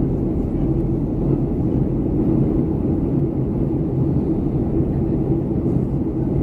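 Steady low rumble of cabin noise inside a Boeing 737-300 in flight: engine and airflow noise, holding even throughout.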